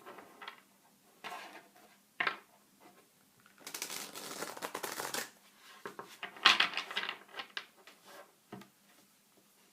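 Tarot cards being shuffled by hand: irregular bursts of cards sliding and riffling, with sharp snaps of card edges, the longest burst about a second and a half long near the middle.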